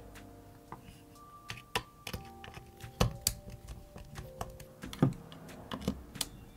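Irregular small clicks and taps from a screwdriver and hard plastic parts as screws are worked out of a massage gun's plastic housing, the loudest about three and five seconds in. Soft background music plays underneath.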